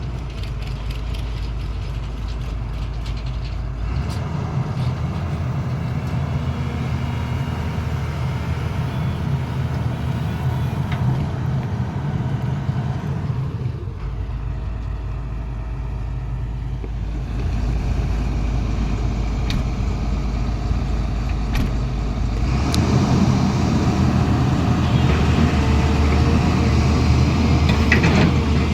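Diesel engine of heavy construction machinery running steadily, its note and load shifting several times, with a few sharp knocks in between.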